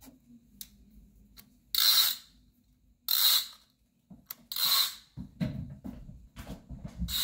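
Fishing-reel-style cat-toy rod whirring in three short bursts as the line with its plush lure is let out and reeled, with faint clicks between, followed by low thumps of footsteps on a hardwood floor.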